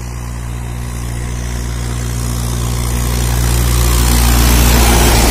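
Mahindra 575 DI tractor's four-cylinder diesel engine running at a steady speed while pulling a heavily loaded sugarcane trailer. It grows louder as the tractor approaches and is loudest near the end as it passes close by.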